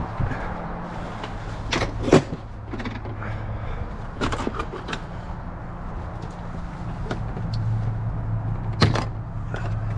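Tools knocking and clanking as they are rummaged out of a toolbox, a few sharp metal knocks standing out about two seconds in and again near the end, over a steady low hum.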